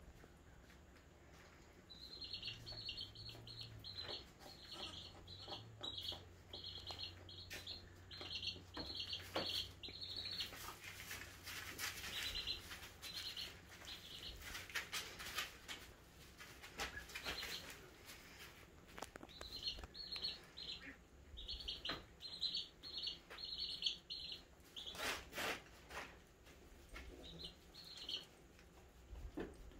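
Short high chirps repeated about two or three a second in long runs, stopping and starting again twice, over rustling and light knocks of goat kids shuffling about on wood shavings.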